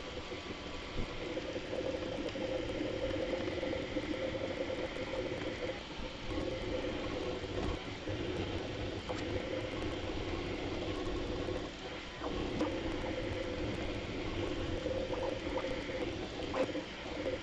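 Bambu Lab A1 3D printer's motors and moving print head whirring steadily while printing, in sped-up footage, with a couple of brief dips.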